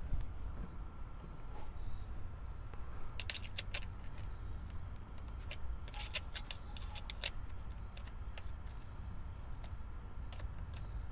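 Small clicks and taps of a battery cable lug and terminal nut being fastened by hand on a 12-volt battery, in bunches twice. An insect chirps in short, evenly spaced calls throughout.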